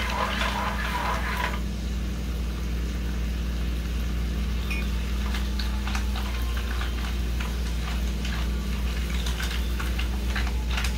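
Mussels cooking in a frying pan on a butane gas stove, stirred with a spatula: a brief burst of stirring and sizzling in the first second and a half, then scattered clicks and scrapes of the spatula and shells against the pan, over a steady low hum.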